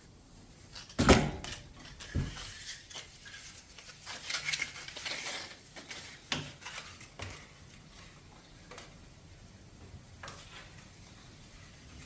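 Handling clatter on a workbench: a sharp knock about a second in, a second knock about two seconds in, rattling and scraping of hard objects between about four and six seconds, and another knock soon after. No grinder motor is running.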